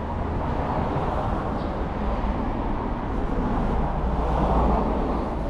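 Road traffic passing on the street, a steady rumble and tyre noise that swells to its loudest about four to five seconds in.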